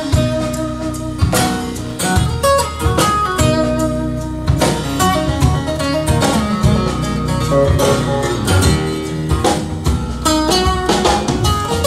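Recorded music playing over Wilson Audio Sabrina floor-standing loudspeakers: an instrumental stretch of a song, with a steady beat and no singing.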